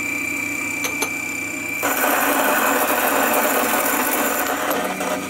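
Olympia Moca SD coffee grinder, its 64 mm Ditting burrs set just off burr touch, grinding coffee. The motor runs with a steady high whine, and about two seconds in the grinding gets much louder and fuller, easing a little near the end.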